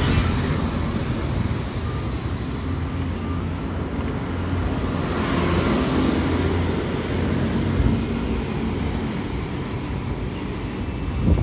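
Steady road traffic noise, a low rumble of vehicles with no single engine standing out, with a short knock near the end.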